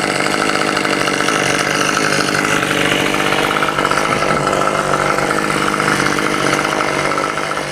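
Chainsaw engine idling steadily, with no revving.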